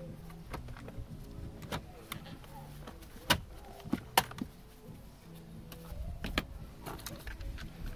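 Sharp plastic and metal clicks and knocks as parts and wiring connectors on a Vauxhall Astra G's bare steering column are handled, the loudest a few seconds in. Quiet background music plays underneath.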